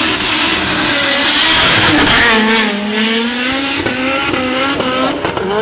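A racing car passes at speed with its engine at high revs. It is loudest about two seconds in, then the engine note falls and rises again several times as the throttle is pumped.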